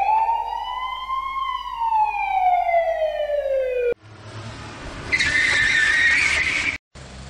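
A siren wail, one long rise and a slow fall, that cuts off about four seconds in. Then comes vehicle noise with a loud tyre screech from about five seconds in, which stops abruptly and gives way to a low engine hum.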